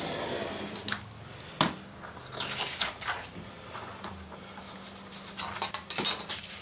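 Craft knife scoring through a sheet of paper and the photo beneath it along a plastic ruler on a cutting mat, then paper rustling and sliding as the sheets are shifted, with a few sharp knocks of the ruler and knife against the mat.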